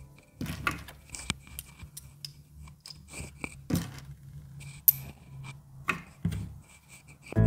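Small pieces of a miniature toy kitchen set clicking and tapping against each other as they are handled, in irregular light clicks with a few sharper knocks.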